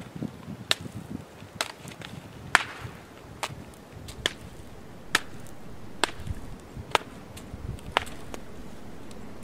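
A series of short, sharp clicks or slaps, about one a second, nine in all.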